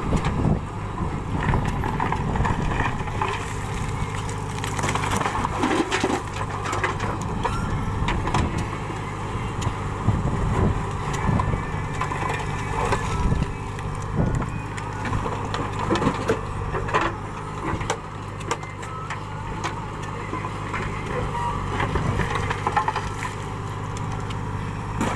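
Backhoe loader's diesel engine running steadily, with scattered knocks and clanks over it.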